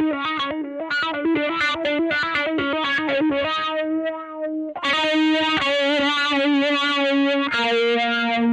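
Greco EG-550 electric guitar played through a Peavey Vypyr VIP 2 modelling amp. It plays a quick run of picked notes, then a few long held notes with vibrato, a fresh one struck near the end.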